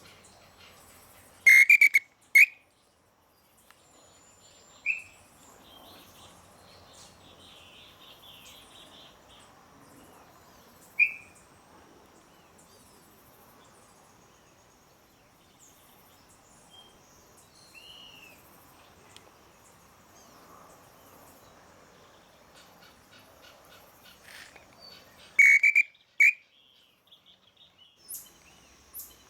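Short whistled notes from a hand-blown bird call (pio) imitating the pé-vermelho tinamou: a quick run of three loud notes near the start and again near the end, with a few softer single whistled notes between. Faint insects and birds sound underneath.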